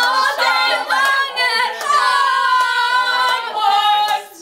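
Several young voices singing unaccompanied, with a lower voice singing short notes underneath. A long drawn-out note fills the second half and stops just before the end.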